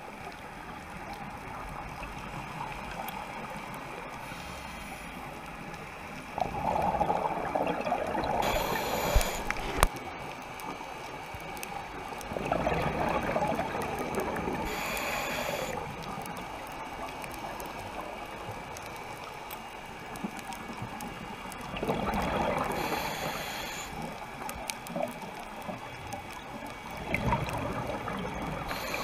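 Scuba diver's exhaled bubbles from the regulator, heard underwater: four bubbling bursts of a few seconds each, about every six to seven seconds, over a steady muffled hiss.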